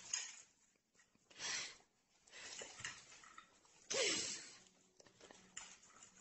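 A dog snorting and snuffling as it eats off a plate: a few short, breathy bursts, the loudest about four seconds in, with a falling pitch.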